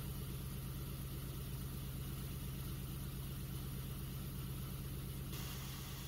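GM LS-series V8 engine idling steadily, with an even low hum and fine rapid firing pulses.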